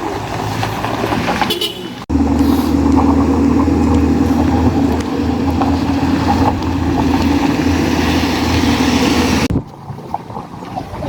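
Bus horn sounding one long, steady blast of about seven seconds, starting about two seconds in and cutting off suddenly, with vehicle noise before and after it.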